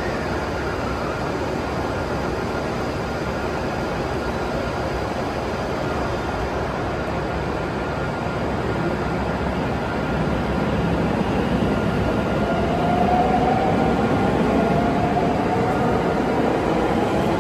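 521-series electric multiple unit pulling out of the platform, its cars rumbling past. About ten seconds in, a whine from its traction motors starts to rise in pitch as it accelerates, and the sound grows louder.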